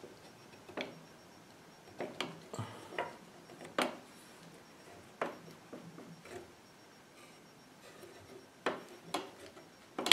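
Scattered wooden knocks and clicks, about ten at uneven intervals, as a rough-carved English walnut gunstock blank is handled and turned in the stock-carving machine, with light rubbing between them. The machine itself is not running.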